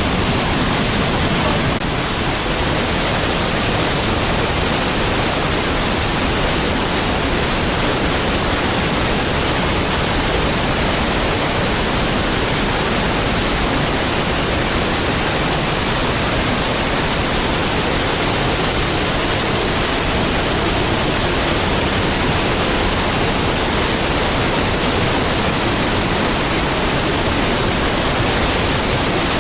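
A large waterfall pouring, heard close: a loud, steady, unbroken rush of water that spans from a low rumble to a high hiss.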